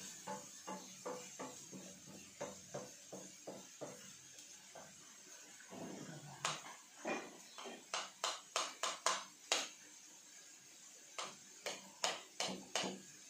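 Wooden spatula stirring and scraping grated vegetables in a frying pan: a run of short scrapes and taps, softer at first and louder from about halfway, over a faint steady sizzle of frying.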